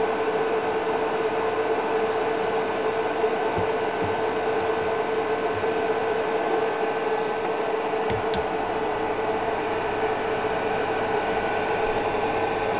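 Steady electrical hum with one strong tone and a hiss, from an audio-driven Tesla multilayer coil water heater, with a few faint knocks.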